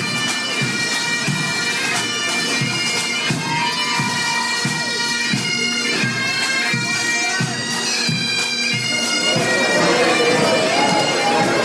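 Bagpipes playing a tune over their steady drones, with a drum keeping an even beat. Crowd voices rise near the end.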